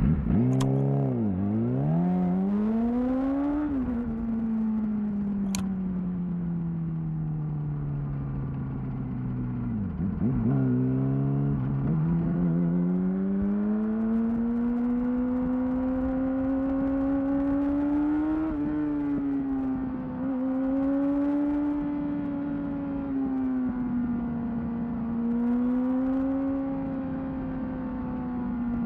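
2008 Yamaha R6's inline-four engine breathing through a Termignoni aftermarket exhaust while the bike is ridden. The pitch climbs in the first few seconds, then falls away slowly until about ten seconds in. It dips and picks up again, climbs steadily, and holds high near the end.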